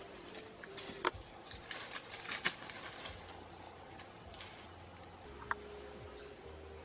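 Dry twigs snapping and leaves crackling in forest undergrowth as someone pushes through it, with several sharp snaps in the first few seconds. It then goes quieter, with a couple of short bird chirps near the end.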